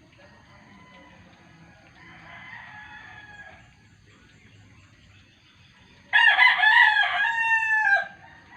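Roosters crowing: a fainter crow about two seconds in, then a loud crow lasting about two seconds near the end, dropping in pitch as it finishes.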